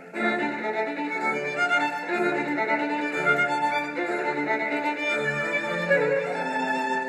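Instrumental music with a violin melody over bowed-string accompaniment, swelling up just after it begins.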